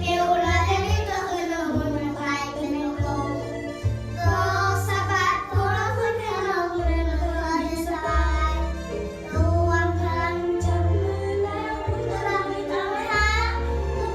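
A young girl singing a Thai song with musical accompaniment, holding long notes with vibrato over a bass line that moves every second or so.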